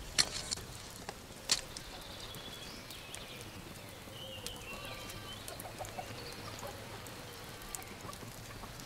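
Quiet outdoor ambience with faint bird calls, and a few sharp clicks in the first two seconds.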